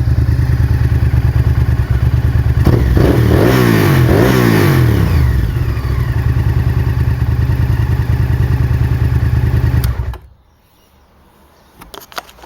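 Honda VTR1000 FireStorm V-twin running through a Leo Vince exhaust with the dB killer removed: it idles, is revved once about three seconds in and falls back to idle, then stops suddenly about ten seconds in, leaving a few faint clicks.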